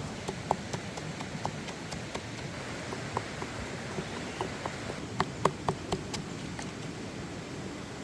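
Steady rushing of a flowing stream, with irregular sharp clicks and taps on top, coming thicker and louder about five seconds in.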